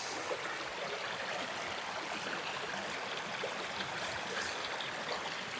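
Small, shallow creek babbling steadily over stones.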